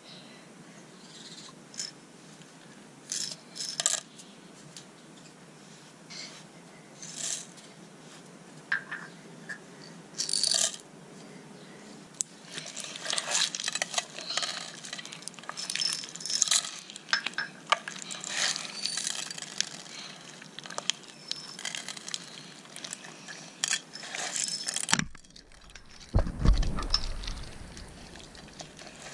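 Clear slime loaded with plastic beads, shell charms and glitter being lifted and squished by hand in a plastic tub: scattered clicks of beads at first, then dense sticky crackling and squelching from about twelve seconds in. A low thump near the end is the loudest sound.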